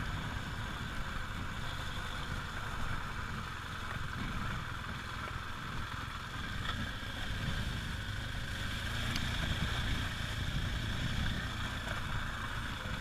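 Motorcycle riding along a dirt road: the engine runs steadily under a heavy, even wind rumble on the microphone.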